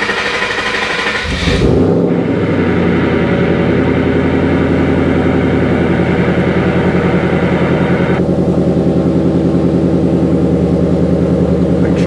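Ford Mustang engine cranked by the starter and catching about a second and a half in, then settling into a steady idle, heard from inside the cabin. A higher hiss over the idle cuts off about eight seconds in.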